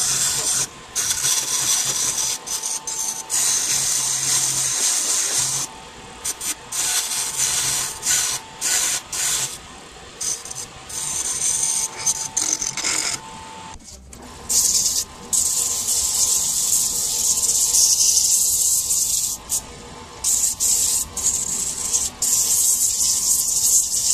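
Hardwood being worked on a spinning midi lathe: a rasping hiss that comes in passes, breaking off briefly every second or two.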